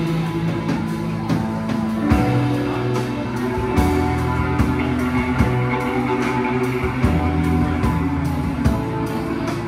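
Live rock band playing with electric guitar, bass guitar and drum kit; sustained bass notes and guitar chords under regular drum hits.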